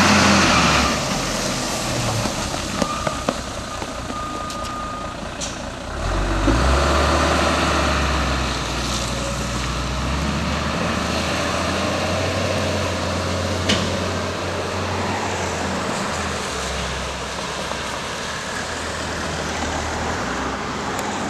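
Box truck's engine pulling away from a stop, picking up about six seconds in and running steadily as it drives off, over tyre hiss on a wet road.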